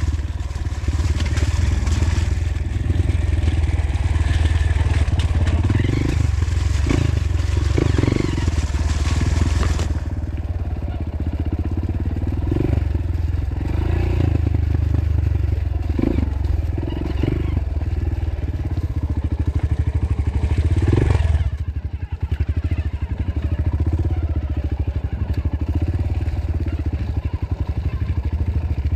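Single-cylinder four-stroke engine of a Honda CRF150L trail bike running under way off-road, with clatter and scraping over the engine note. The engine sound dips briefly about 22 seconds in, then carries on.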